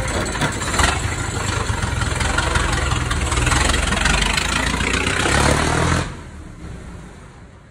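Engine of a vintage open-wheeled racing car running loudly as the car pulls away. The sound falls away sharply about six seconds in, then fades.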